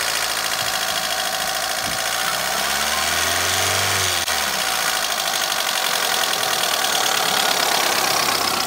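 Kia Morning's four-cylinder petrol engine idling under the open bonnet, a steady mechanical clatter with a brief rise and fall in pitch about three seconds in. The engine has just been overhauled.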